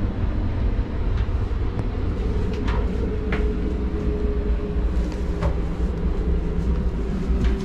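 Sunrise Express sleeper train running, heard from inside a car as a steady low rumble with a few light clicks and rattles. A faint steady hum joins about three seconds in.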